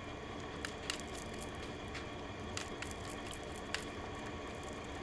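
Quiet room tone: a steady low hum with a few faint, short clicks scattered through it.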